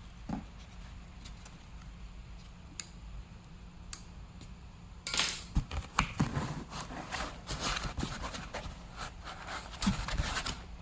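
Handling of packaging and parts while a boxed electric melting furnace is unpacked: a few faint clicks, then from about halfway a busy run of rustling, scraping and knocking.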